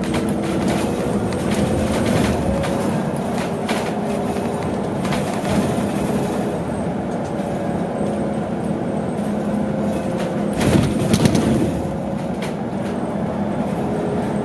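Cabin sound of a BYD large electric bus on the move: steady road and tyre noise with a faint motor whine drifting slowly in pitch, and light rattles and knocks from the interior. A heavier bump comes about eleven seconds in.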